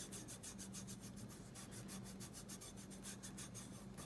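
Fingertips rubbing mica powder through the mesh of a silkscreen onto polymer clay: faint, quick back-and-forth strokes, several a second, over a steady low hum.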